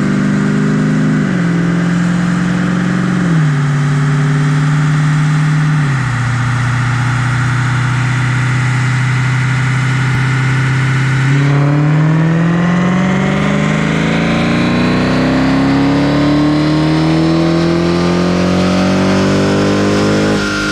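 Stock 2015 Dodge Challenger/Charger Hellcat's supercharged 6.2-litre Hemi V8 running on a chassis dyno. The engine holds a steady note whose pitch drops in three steps over the first six seconds. From about halfway it goes to a full-throttle dyno pull, its pitch rising steadily for about nine seconds.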